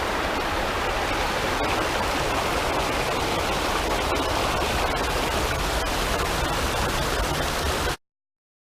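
Stream water rushing and splashing over rocks in a steady, even rush that cuts off abruptly near the end.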